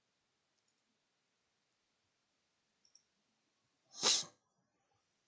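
Near silence, broken about four seconds in by one short, breathy noise close to the microphone, like a person's quick breath out.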